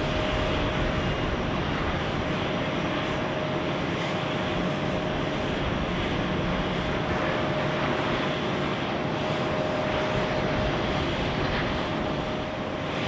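Boeing 737-800 airliner's jet engines running through the landing roll-out and turn-off, a steady whine over a broad, even rush of engine noise.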